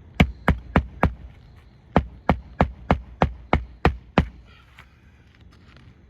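Hammer driving roofing nails into asphalt shingles on a roof deck: four sharp blows, a short pause, then eight more, about three blows a second.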